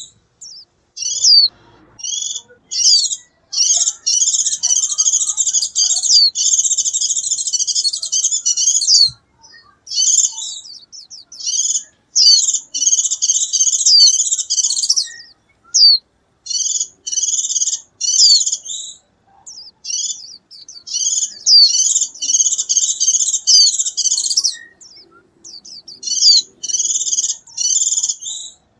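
A white-eye singing and calling to its flock: rapid, high-pitched twittering phrases a few seconds long, full of quick sliding notes, with short pauses between them.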